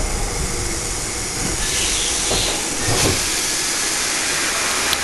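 GT4 tram running on rails, heard from on board: a steady rumble with a hissing stretch lasting about a second and a half, starting around a second and a half in, and a knock about three seconds in.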